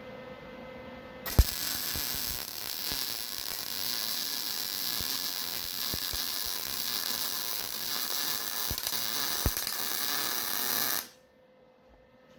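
Welding arc crackling steadily on the steel of a smoker build, striking with a sharp pop about a second in and cutting off suddenly near the end after about ten seconds.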